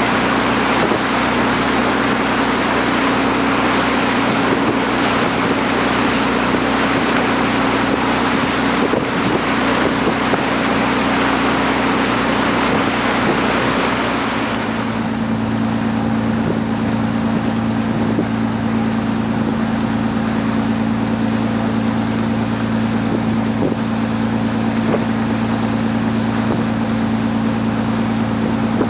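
A tour boat's engine runs steadily under loud wind and water rushing. About halfway through, the rushing eases and the engine note drops slightly lower.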